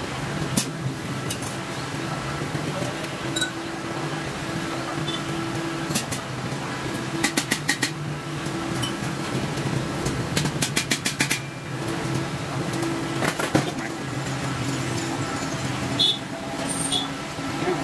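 Truck engine running steadily to power a truck-mounted crane as it lifts a heavy load, with several short bursts of rapid clicking.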